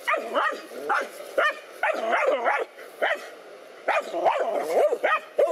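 Dogs barking and yelping in rapid, excited bursts at a snake they are confronting, about two to three barks a second with a short lull a little past the middle.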